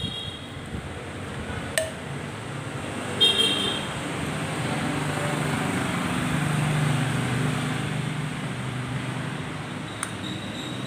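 A motor vehicle passing on a nearby road: a low engine hum swells to a peak and then fades. A sharp click comes just under two seconds in, and a brief high-pitched toot comes a little after three seconds.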